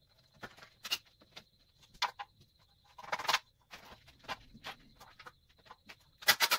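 Scattered light knocks and clicks of a spirit level and hands handled against a wooden 2x4 fastened to brick, with a short cluster of sharp taps near the end.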